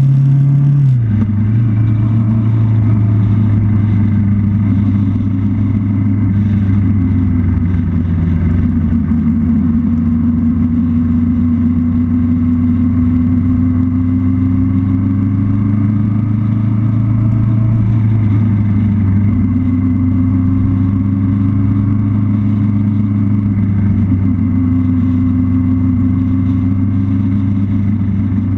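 Motorcycle engine running steadily at road speed, heard from the bike carrying the camera; its note drops about a second in, then holds with slow small rises and falls in pitch.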